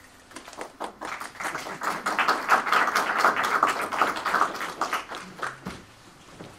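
A small audience applauding. The clapping builds over the first two seconds and dies away after about five seconds, with one low thump just after it ends.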